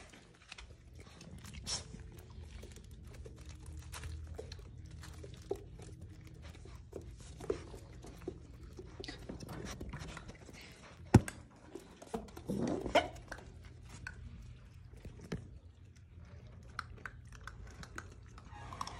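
Puppies playing on a tile floor: scattered clicks and scuffles of claws and paws, with chewing and mouthing sounds as they bite at each other. A sharp knock comes about eleven seconds in and a brief louder scuffle just after.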